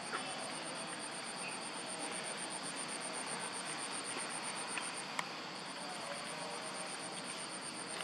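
Insects trilling in a fast, even, high-pitched pulse over a steady outdoor hiss; the trill breaks off for about half a second around five seconds in, and there are a couple of sharp clicks.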